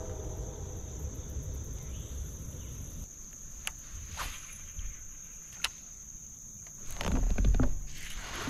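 Insects singing a steady high-pitched drone, with a few sharp clicks in the middle and a louder, low rumbling knock of handling noise about seven seconds in.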